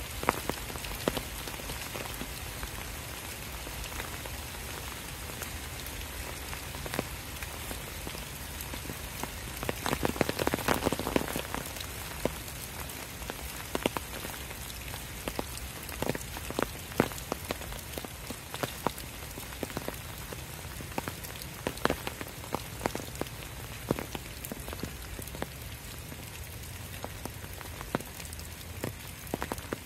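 Steady rain falling on leaves and the ground, with many separate drops ticking close by. A brief louder swell of noise comes about ten seconds in.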